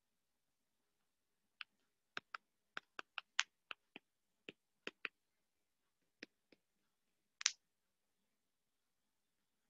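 Faint, sharp clicks of a pen stylus tapping and striking a tablet's writing surface during handwriting, about fifteen irregular taps in a burst after the first second and a half, the last and loudest about seven and a half seconds in.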